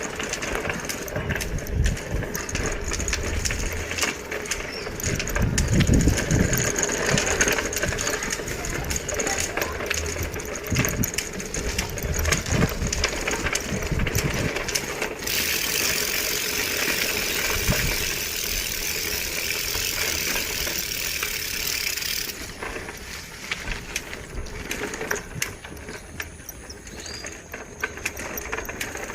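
Bicycle rattling and clicking over a rough road, with low rumbles. A steady hiss sets in about halfway through and stops abruptly some seven seconds later.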